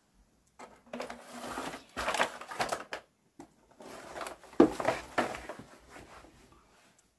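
Handling noise: rustling and clattering as things are moved about by hand. It comes in two spells of about two and three seconds, with a short gap between them.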